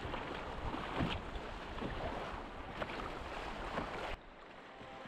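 Canoe paddles dipping and splashing in river water, a stroke about once a second over a steady rush of water; the sound drops off suddenly about four seconds in.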